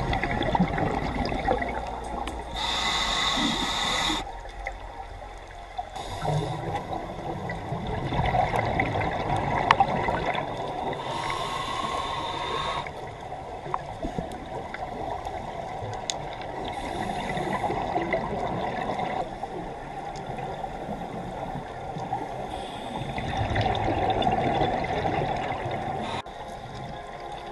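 Scuba diver breathing through a regulator, heard underwater: short hissing inhalations that start and stop sharply, with bubbling exhalations between them.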